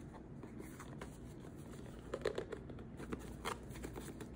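Hands turning and handling a small cardboard product box, with faint scrapes and taps of fingers on the cardboard and a few louder ones a little after halfway.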